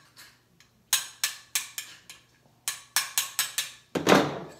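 Hammer striking a punch to drive the cocking-lever pivot pin out of a Diana 240 Classic .177 spring-piston air rifle: two runs of sharp, ringing taps, about four a second. About four seconds in comes a louder, longer clatter.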